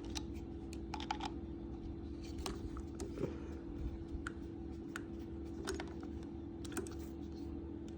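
Scattered light clicks and taps of small metal parts being handled as the old throttle linkage is pulled off a go-kart carburetor, over a steady low hum.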